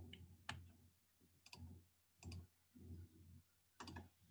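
Computer mouse clicking faintly, four times, a couple of them in quick double clicks.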